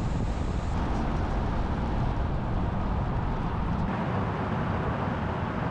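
Pickup truck driving, with steady engine and road noise; the low rumble eases about four seconds in.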